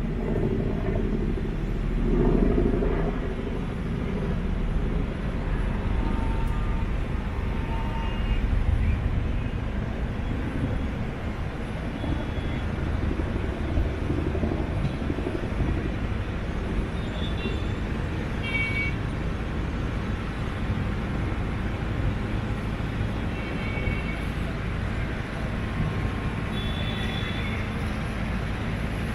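City street traffic heard from above: a steady rumble of engines and tyres, with several short horn toots scattered through it.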